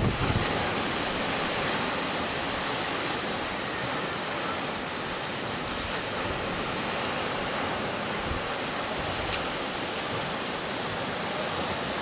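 Stormy sea surf: a steady, even rush of breaking waves. A brief gust of wind hits the microphone right at the start.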